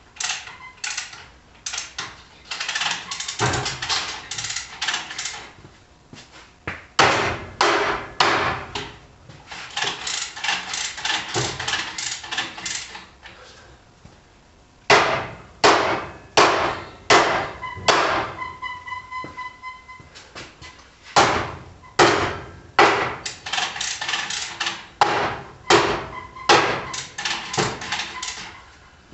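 Hand hammer striking metal in several runs of rapid, uneven blows with short pauses between them; a clear ringing tone follows one group of strikes in the middle.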